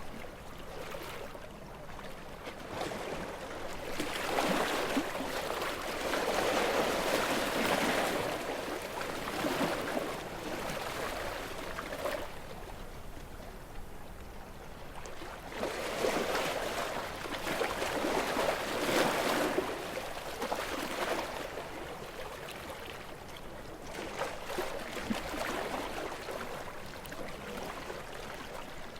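Gentle waves washing onto a beach, the surf swelling and ebbing in slow surges several seconds apart, three in all, with a quieter lull between the first two.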